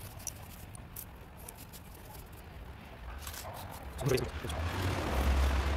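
Street ambience with a vehicle going by: a low rumble swells over the last few seconds and is loudest near the end, with a brief trace of distant voices.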